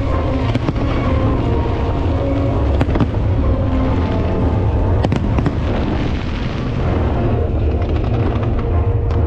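Aerial fireworks display: a dense, continuous run of booming shell bursts, with a few sharp cracks standing out about three and five seconds in.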